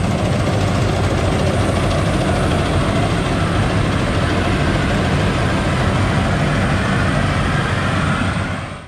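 Faworld rice combine harvester running steadily as it cuts storm-flattened rice, a constant engine and machinery drone that fades out near the end.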